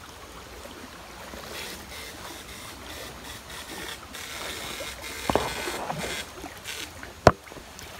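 Shallow stream water sloshing and splashing as electrofishing poles and a dip net are swept through it by a wading fisherman, growing louder and hissier midway. A short thump about five seconds in and a single sharp click about seven seconds in.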